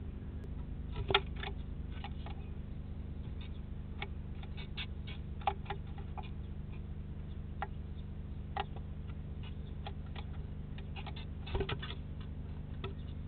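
A great tit inside a nest box, making irregular light taps and scratches as it pecks and shuffles on the box floor, over a steady low electrical hum.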